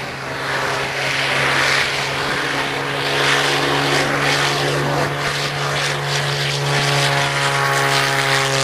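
Propeller-driven aerobatic monoplane's engine at high power in a low pass along the runway: a loud, steady drone that grows louder over the first second or so and then holds.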